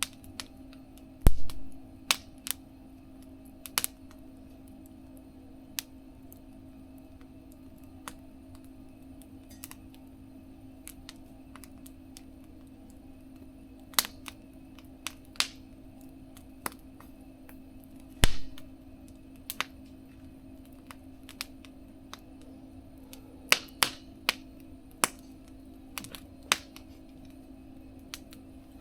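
Wood fire in a small mesh fire-pit stove crackling, with sharp irregular pops every second or two and a few louder pops, two of them with a low thump. A steady low hum runs underneath.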